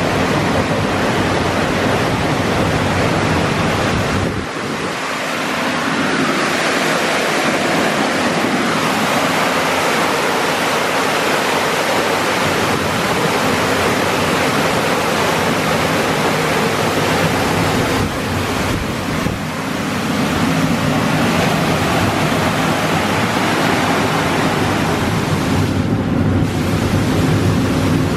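Petit AccuTrac 360 touchless car wash spraying high-pressure water over a car, a loud steady hiss of spray with a low pump hum beneath. It dips briefly about four seconds in and twice more later as the spray arm moves around the car.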